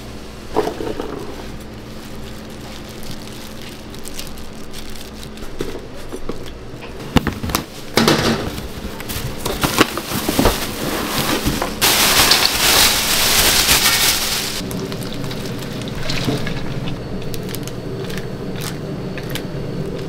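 Kitchen prep sounds over a steady low hum: scattered clatter and knocks of handling, then a loud rushing, pouring noise for about three seconds a little past the middle, as soybean sprouts are being put into a wide cooking pan.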